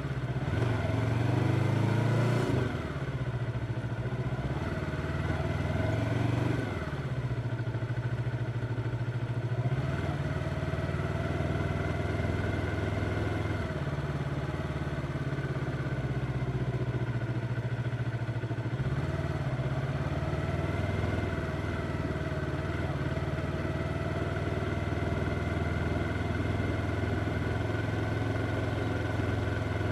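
Yamaha R25's parallel-twin engine under way. Its pitch rises twice in the first several seconds, dropping after each rise as it shifts up, then holds a steady cruising note.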